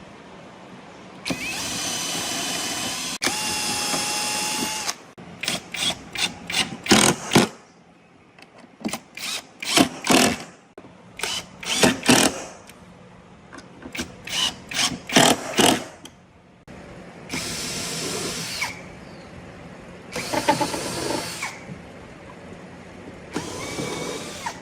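Electric power tool running in a few steady spells of one to three seconds, with many short bursts in between, as it is switched on and off.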